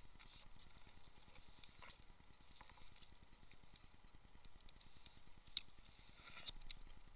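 Near silence with faint, scattered clicks and taps, and two sharper clicks near the end.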